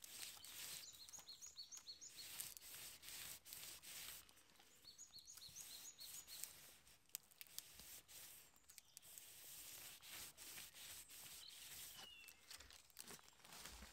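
Faint woodland birdsong: a quick run of five or six high repeated notes about a second in, the same run again about five seconds in, and a short falling call near the end. Faint scattered clicks and crackles run under it.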